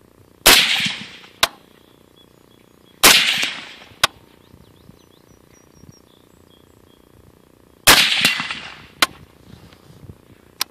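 Three suppressed .308 rifle shots from a CMMG MK3 AR-10 fitted with a Gemtech ONE suppressor, a few seconds apart, each with a short fading tail. A thinner sharp crack follows about a second after each shot.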